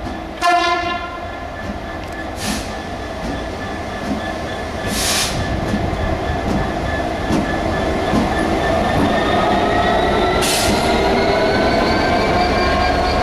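EWS Class 66 diesel locomotive running light engine: a short toot on its horn about half a second in, then the thrash of its two-stroke EMD V12 diesel. The engine note rises and grows louder over the last few seconds as it comes past.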